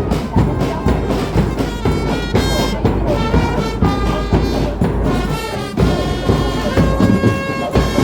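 Brass band music: horns holding long notes over a steady drum beat.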